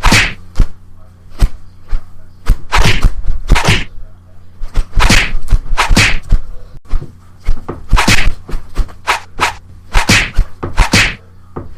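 Exaggerated mukbang eating sounds: a string of loud, short, crunchy bites and chews, about a dozen, coming in irregular clusters.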